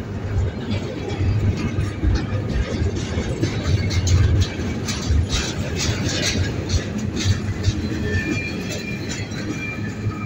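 Double-stack intermodal container train's well cars rolling past: a steady low rumble of steel wheels on rail, with a run of clacks over rail joints about four to seven seconds in.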